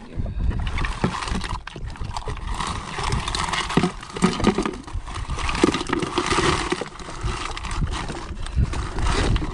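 Bay scallop shells clattering and knocking against each other and a plastic bucket as a mesh dive bag full of them is shaken out, over a steady low rumble.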